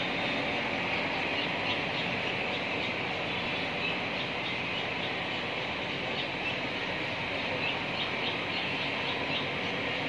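A steady rushing noise, over which come short runs of faint, rapid, high-pitched chirps: bulbul nestlings begging as a parent feeds them at the nest.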